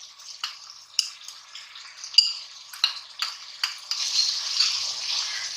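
Chicken pieces frying in oil in a pan while being stirred, a spoon clinking against the pan several times. The sizzle gets louder about four seconds in.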